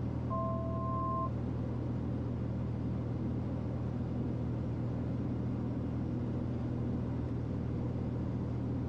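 Piper Malibu's single piston engine and propeller droning steadily in the cabin during the descent. A short electronic alert tone of two pitches together sounds once, starting just after the beginning and lasting about a second.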